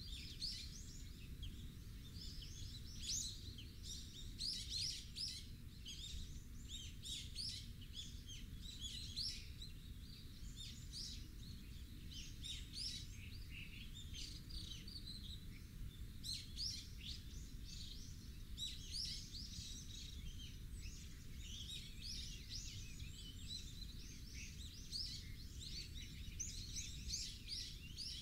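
Many small birds chirping and calling continuously in quick, overlapping notes, over a low steady rumble.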